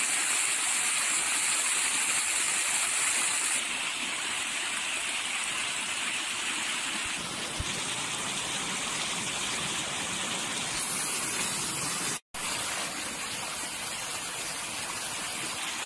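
A heavy flow of water gushing and splashing over stone and concrete, steady throughout, broken off for an instant about twelve seconds in.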